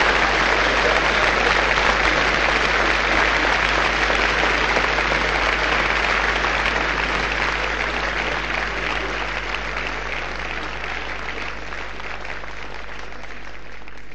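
Live audience applauding, dense and sustained, gradually fading in level, over a steady low hum.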